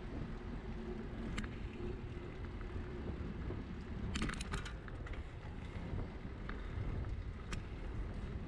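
Steady wind rush on the microphone and low road rumble from a bicycle riding along a city street. A few sharp clicks stand out, with a brief rattle about four seconds in.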